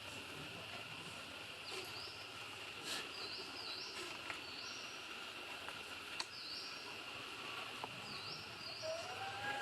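Outdoor ambience: insects keep up a steady high drone while a bird gives short chirping calls, repeated every second or so, with a few faint clicks. A lower, gliding animal call comes in near the end.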